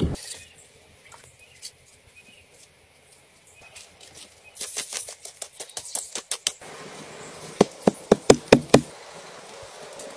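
Clay bricks and hand work in the soil: a patter of quick taps and scrapes, then about six sharp knocks in quick succession nearer the end. A thin steady high whine runs through the first half.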